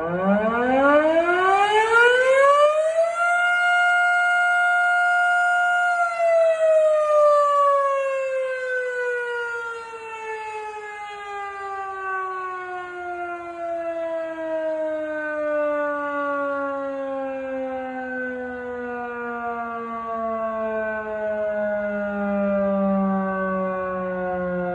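Model 3 outdoor tornado warning siren sounding its noon test blast: it winds up quickly to full pitch over about three seconds, holds there for a few seconds, then slowly winds down, its wail falling steadily in pitch.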